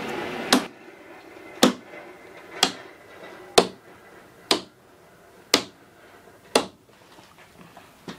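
Train running noise that cuts off about half a second in, followed by a series of sharp clicks, about one a second, seven in all.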